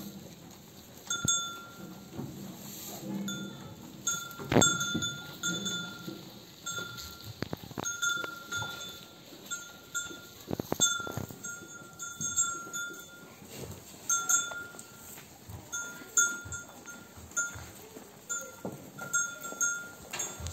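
A small sheep bell clinking again and again at an uneven pace as the sheep move and the lambs suckle, with low sheep bleats and a few sharp knocks, the loudest about four and a half seconds in.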